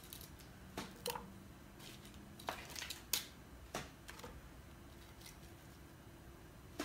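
Kitchen tongs clicking and tapping against a pot as baked chicken pieces are lifted and turned in thick tomato gravy: a scatter of short, sharp clicks, about eight in all.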